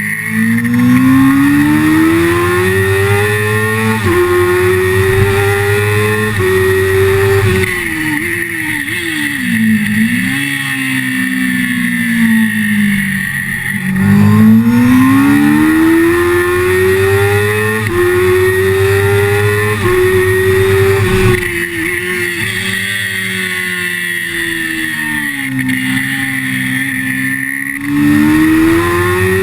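Sport motorcycle engine heard on board at speed on a race track: revs climb through several quick upshifts, fall away with blipped downshifts under braking about eight seconds in, then climb and fall again through the next corners.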